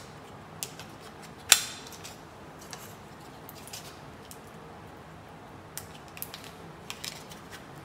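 Light clicks and clinks of chip-fan blades, springs and spring retaining clip being handled in the hands, with one sharper click about a second and a half in.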